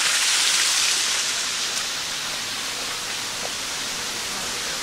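Small waterfall rushing: a steady hiss of falling water, a little louder in the first second.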